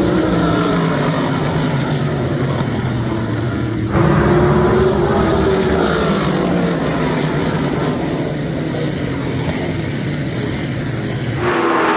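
Race car engines running hard as cars pass on a short oval, their pitch dropping as each goes by. The sound jumps abruptly about four seconds in and again near the end.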